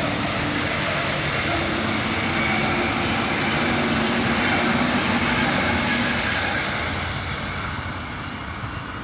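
Renfe Cercanías Civia electric commuter train running past close by, wheels rolling on the rails with a steady electric hum over the noise. The sound fades over the last few seconds as the train pulls away.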